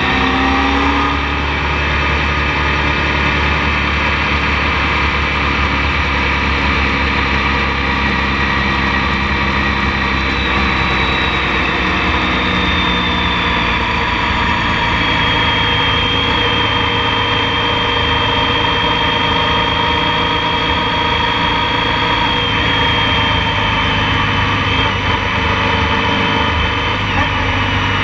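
Motorcycle engine running steadily under way, with wind and road noise on the bike-mounted camera's microphone. Its pitch rises briefly near the start, then holds steady.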